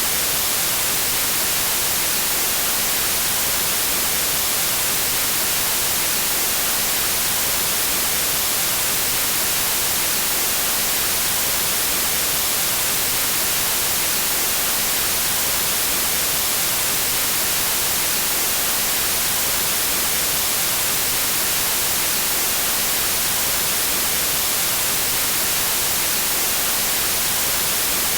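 Synthetic white noise: a steady, even hiss across the whole range, brightest in the highs, with no change at all.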